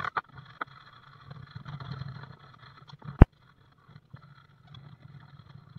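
The end of a hand-plane stroke across a board held in a vise at the very start. Then a steady low hum, with one sharp knock about three seconds in.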